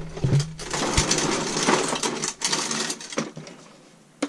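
Rustling, scraping and small knocks of objects being handled close to the camera, fading away near the end. A steady low hum stops about half a second in.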